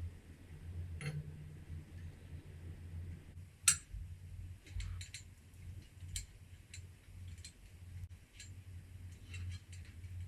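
Scattered metallic clicks and taps of hand tools working on a Honda F18B engine during teardown, with one sharp knock about three and a half seconds in, over a steady low hum.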